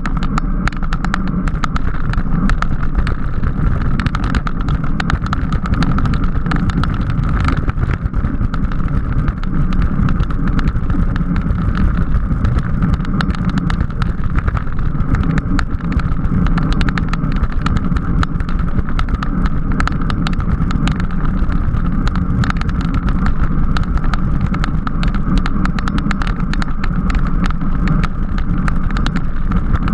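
Steady rush of wind on the microphone with tyre and drivetrain noise from a racing bicycle being ridden fast, a continuous loud rumble with a faint steady hum above it.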